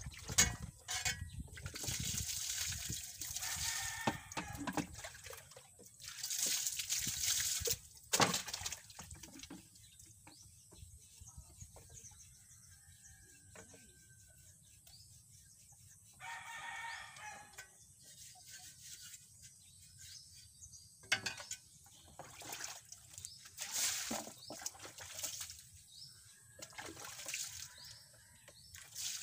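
Water splashing and sloshing in a tub as things are washed by hand, in several bouts with short pauses between.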